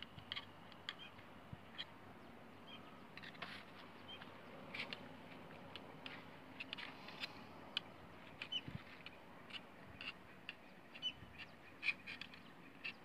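Faint, irregular light clicks and taps of a thin metal pick and hands working a floating seal into an excavator final drive hub.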